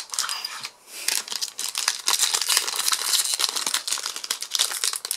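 Foil wrapper of a Magic: The Gathering collector booster pack crinkling and tearing as it is pried open by hand. The crackling picks up about a second in and keeps on densely; the wrapper is tough to tear.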